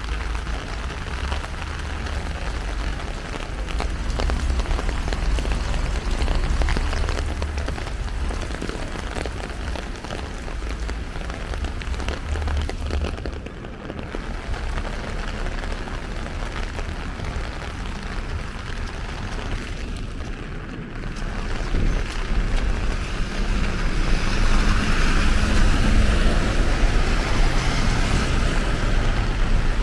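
Heavy rain pouring down onto the street, a steady dense hiss, over a low rumble. It grows louder in the last few seconds.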